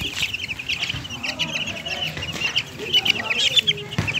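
A flock of month-old chicks peeping, a dense stream of short, high overlapping peeps, with a few lower clucks in the second half.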